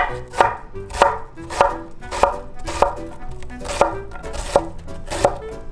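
Chef's knife dicing a red onion on a wooden cutting board: the blade cuts through the onion and strikes the board at a steady pace, about two knocks a second.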